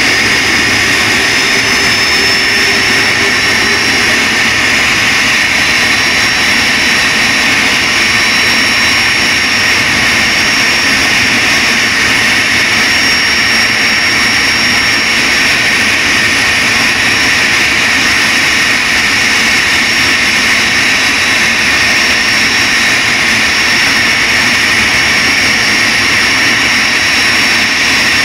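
Twin CFM56-3 turbofan engines of a Boeing 737-300 running steadily: a loud, even rush of jet noise with a thin high-pitched turbine whine over it, the whine edging up slightly about two seconds in.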